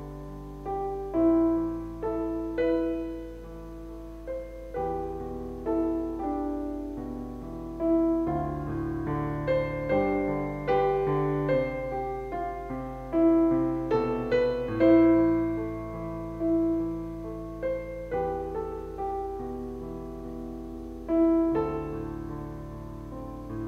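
Slow piano music, its notes struck one after another and left to ring and fade.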